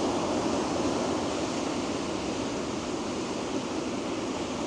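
Steady wash of surf breaking on the beach, an even rushing noise with no distinct events.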